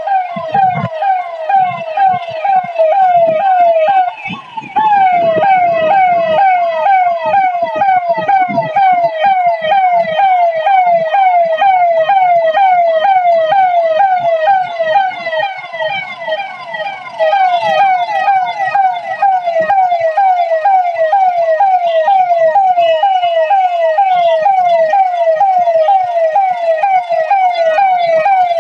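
Electronic siren wailing in a fast repeating pattern of falling sweeps, about two to three a second, with a brief dip about four seconds in. It is the alert siren sounded to warn people to wear masks against Covid.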